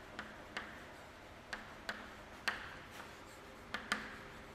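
Chalk writing on a chalkboard: about seven sharp, irregularly spaced taps of the chalk against the board, with light scratching of the chalk strokes between them.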